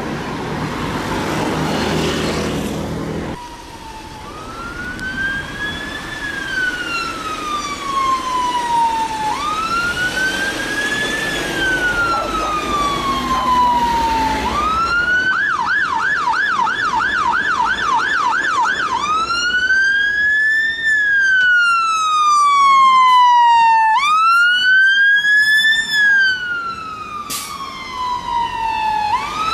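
Road traffic noise, then a fire engine's siren wailing, rising and falling about every five seconds. Midway it switches for a few seconds to a fast yelp of about three cycles a second, then goes back to the wail.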